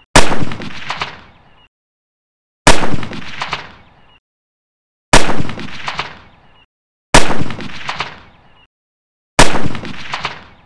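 Five dubbed rifle shots, about one every two to two and a half seconds, each a sharp crack that dies away over about a second and a half. A few short clacks follow each shot as the bolt of the bolt-action rifle is worked.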